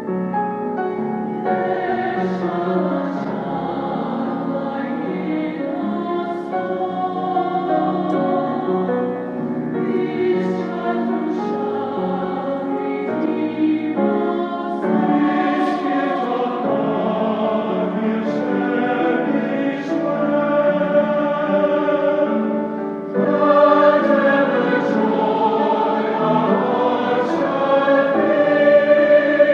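A choir singing a sacred piece in sustained phrases, with short pauses between phrases about 14 and 23 seconds in.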